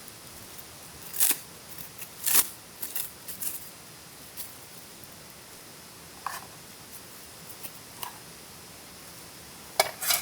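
A few sharp clicks and light clatters of small hard objects being handled, like camp cookware or utensils being moved and set down, over a steady soft hiss. The two loudest come about a second and two seconds in, with a quick cluster near the end.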